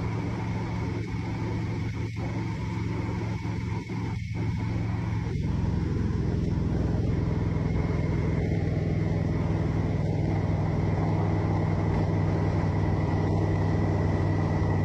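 Car driving along a highway, heard from inside the car: steady engine and road noise. It grows a little louder about five seconds in.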